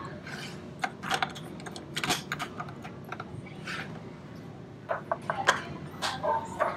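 Plastic bear-shaped domino tiles clicking and tapping against a tabletop as they are handled and set down: a scatter of irregular sharp clicks, some in quick pairs.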